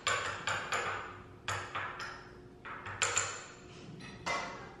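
A metal utensil clinking and scraping against a container as tuna is scooped out for a cat: a string of about eight short, sharp clinks, each ringing briefly.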